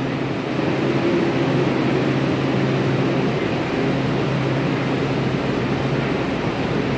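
Steady railway station noise: an even rushing hiss over a constant low hum, as a Metro-North M8 electric train approaches from a distance.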